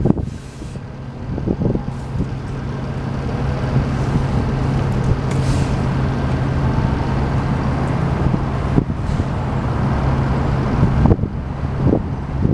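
Orion VII Next Generation hybrid city bus running at the stop, its diesel engine giving a steady low hum, with a short hiss of air about half a second in and again midway.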